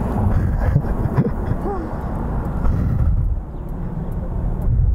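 Street traffic: a steady low rumble of cars going by, easing off a little after about three seconds, with brief faint voices in the first two seconds.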